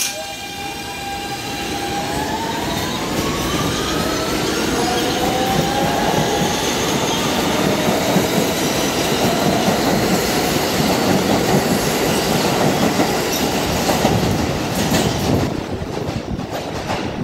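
New York City Subway R160 train pulling out of the station: its traction motors whine and rise in pitch as it picks up speed, then the wheels clatter along the rails as the cars pass, loudest midway and fading near the end.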